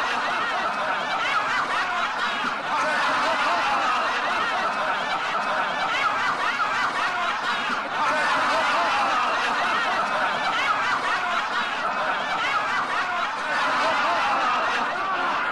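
Canned TV laugh track: a studio audience of many voices laughing and chuckling together, overlapping in steady, continuous laughter.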